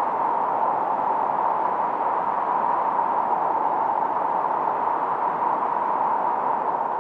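Steady filtered noise from a 1972 Minimoog synthesizer, a hiss concentrated around 1 kHz with no change in level or colour.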